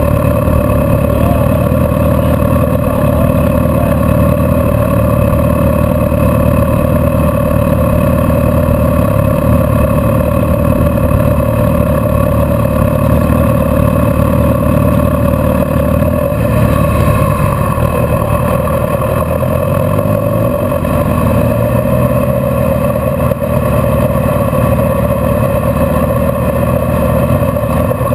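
Steady drone inside a car creeping along in stop-and-go traffic: engine and road rumble with a constant hum over it.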